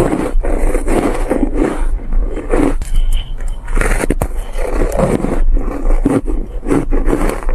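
Close-up crunching of frozen shaved ice being bitten and chewed, a quick run of crunches about three a second.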